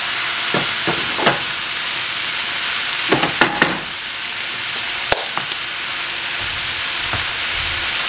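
Shredded cabbage and carrot stir-fry sizzling steadily in a wok over a gas burner, the vegetables starting to soften. A few light knocks come in the first seconds and around three seconds in, and there is one sharp click about five seconds in.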